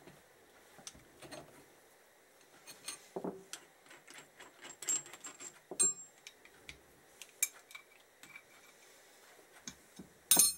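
Ratchet and spanner clicking and clinking on the steel fittings of a blind bearing puller as it is loosened, then metal puller parts set down on the workbench with a loud clatter near the end.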